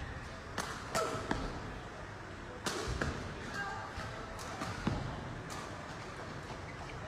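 Badminton rally: rackets strike the shuttlecock with sharp cracks several times, mixed with short squeaks of players' shoes on the court. The strikes stop about five seconds in.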